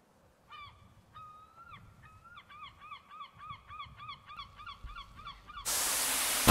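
Gull long call: a few drawn-out notes, then a fast run of short, repeated yelping notes at about four a second. Near the end a steady rushing noise sets in.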